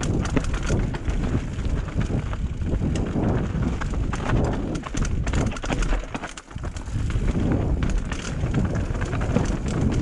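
Mountain bike clattering down a rough, rocky enduro trail: tyres crunching over dirt and stones under a low rumble, with rapid knocks and rattles from the bike at each hit. It eases off briefly about six and a half seconds in, then picks up again.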